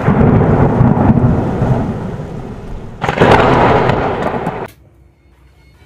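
Thunder sound effect: a loud rolling rumble, then a second clap about three seconds in, stopping abruptly near the end.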